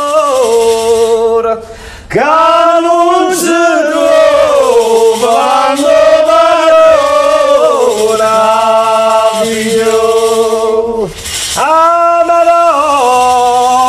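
Men's voices singing together a Campanian canto a figliola ('a fronna'), a devotional song in long, drawn-out, wavering phrases. The singing breaks for breath about two seconds in and again near eleven seconds.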